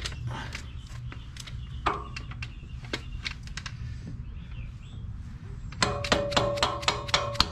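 Scattered metal clicks and knocks as a rear upper control arm and its bolt are worked into the frame mount, then near the end a quick run of sharp, ringing metal taps as the bolt is driven home.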